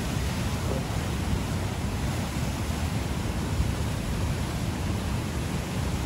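Waterfall on a rain-swollen, muddy river: water rushing steadily over a rock ledge and churning in the pool below, a continuous rushing noise heaviest in the low end.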